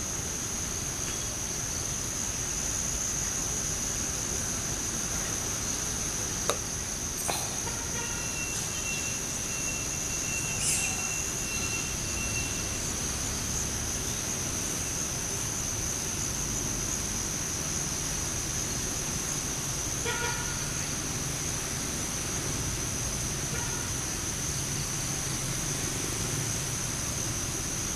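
Insects droning, a steady high-pitched note. About eight seconds in, a held tone sounds for about four seconds, with a shorter one later, and a couple of brief clicks come just before it.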